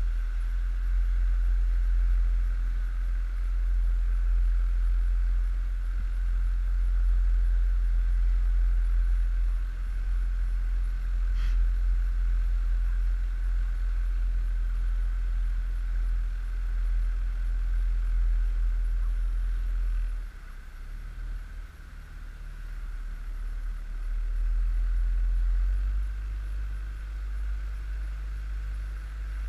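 Outboard motor of an inflatable coach boat running steadily under way, with a deep wind rumble on the microphone; the level dips for a couple of seconds about two-thirds of the way through.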